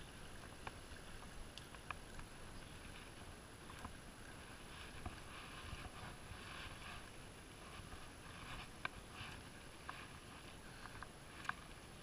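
Rustling and handling noise from a body-worn camera as the angler moves through dry brush and grass with a spinning rod. Sharp small clicks and snaps are scattered through it, over a low steady rumble.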